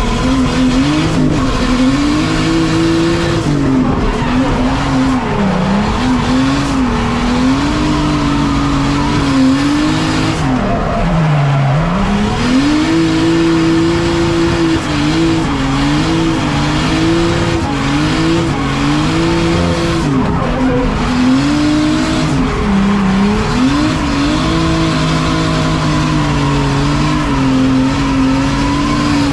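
A race-prepared BMW E30 drift car, heard from inside its cabin, with its engine revs climbing and falling again and again through a drift run and dropping deepest about eleven seconds in. The tyres squeal as it slides.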